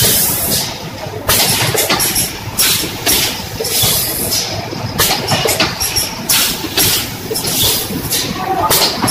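SanTung AGM+PF rotary premade stand-up pouch packaging machine running: a constant mechanical clatter with short, sharp hisses repeating about twice a second.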